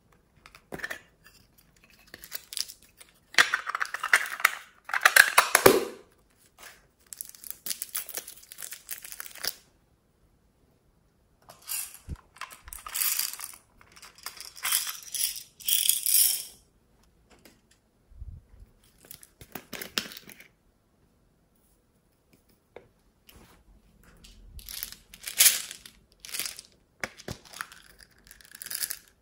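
Small plastic toy containers being handled and opened: rustling, clicking plastic, with coloured sand and small plastic pearl beads shifting and rattling inside. The sound comes in several short bursts separated by silences, the loudest a few seconds in.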